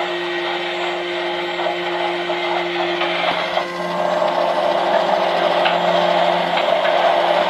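Tiny toy washing machine running with a steady motor hum as its drum turns the slime; about three and a half seconds in, the churning noise grows louder.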